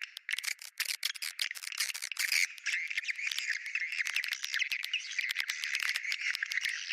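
Swiftlet lure call: dense, continuous twittering chirps of swiftlets mixed with rapid dry clicks. It is a recorded call meant to draw swiftlets in.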